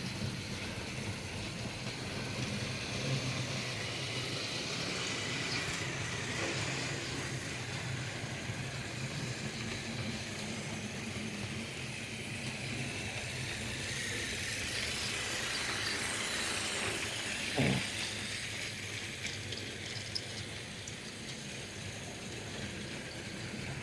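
Battery-powered Tomy Plarail toy trains running on plastic track: a steady whir of small electric motors and gears with wheels rattling over the track joints. There is a single knock near the end.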